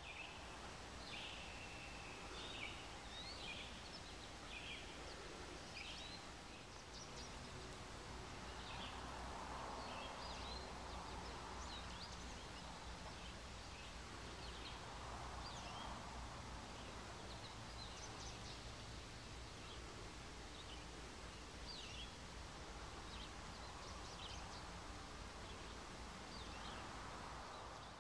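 Outdoor ambience: scattered short bird chirps and calls over a steady low rumble, with a few soft swells of rustling about ten, sixteen and twenty-seven seconds in.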